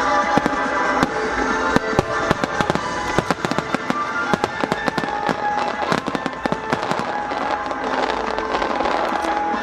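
Komatsu Enka Kogyo aerial firework shells bursting in quick succession, many sharp bangs and crackles, with music playing under them.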